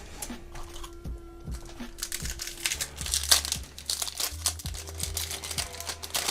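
Foil booster-pack wrapper crinkling as it is handled and opened, loudest in a dense crackle in the middle, over background music with a steady low bass.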